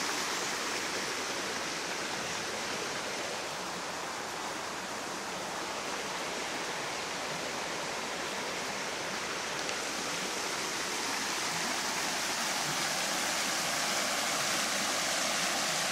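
Steady rushing of water over river rapids, dipping a little midway and growing slightly louder near the end.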